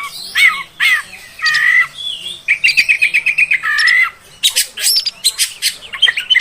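Oriental magpie-robin (kacer) singing a varied song of whistled phrases, with a quick trill of about nine repeated notes midway and sharp high notes after it.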